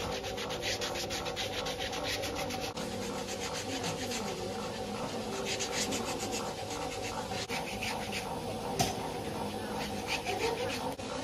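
A hand-held pedicure scrubber rasping back and forth against the skin of a foot in quick, repeated strokes, several a second, coming in runs.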